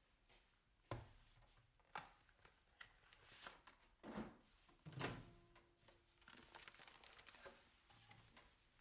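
Quiet kitchen handling sounds: a few soft knocks about a second apart, then the crinkle of a microwave popcorn packet being unwrapped, and the microwave door being opened near the end.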